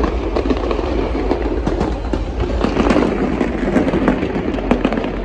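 Fireworks display going off: a dense, continuous crackle of many small pops over a steady low rumble.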